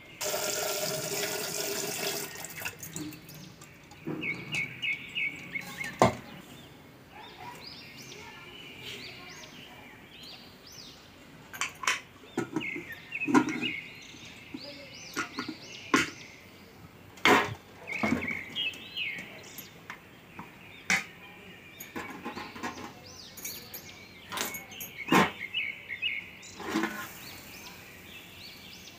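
Tap water runs briefly into an aluminium pressure cooker and stops about two seconds in. After that come scattered knocks and clinks of metal cookware, with birds chirping in short repeated trills in the background.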